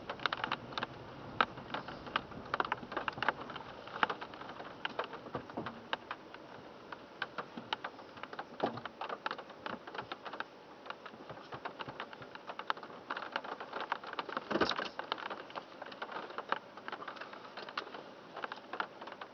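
Raindrops tapping irregularly on a car's roof and windshield, heard from inside the cabin.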